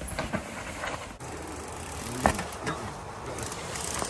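Mountain bike descending a steep dirt trail: tyres rolling over soil and roots, with a few short knocks. It grows louder near the end as the rider comes closer.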